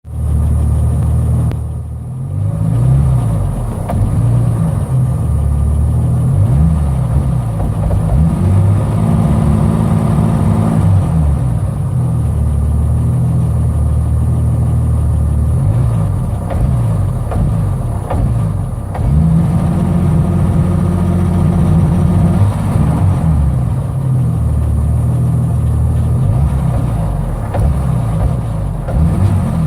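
BMW 745i E23's turbocharged M106 straight-six running with its revs rising and falling over and over, held up for a couple of seconds at a time. The engine hesitates and misfires.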